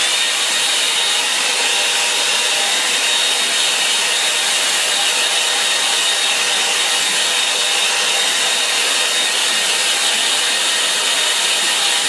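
Handheld hair dryer blowing steadily over wet watercolour paper to dry it: an even rush of air with a thin, steady high whine on top.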